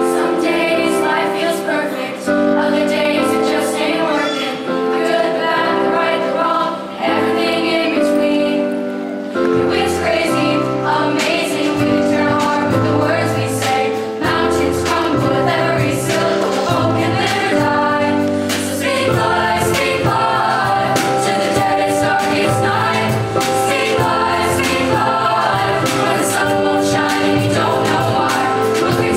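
Youth choir singing with keyboard accompaniment. About nine seconds in, a low bass line and drums come in, and the music grows fuller.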